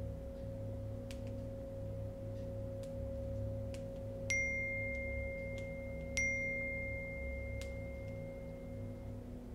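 Two smartphone message-alert chimes about two seconds apart, each a sharp ding that rings on as a steady high tone, the second fading out after about three seconds. A steady low hum runs underneath.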